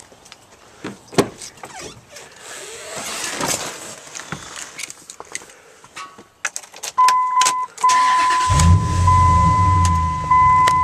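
Door and key clicks, then a steady electronic warning chime from the dash. The 2004 Dodge Ram's 5.7-litre HEMI V8 then cranks, catches and settles into a loud, deep idle through its muffler-deleted exhaust.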